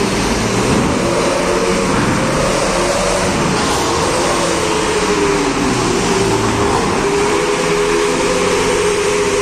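Diesel cargo truck driving slowly up the ramp onto a ferry's vehicle deck and passing close by. Its engine note rises and falls, then settles into a steady drone over a constant rumble.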